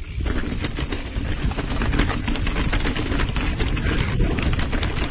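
Mountain bike riding fast down a rough dirt trail: wind rumbling on the microphone, with the bike rattling and knocking over bumps throughout.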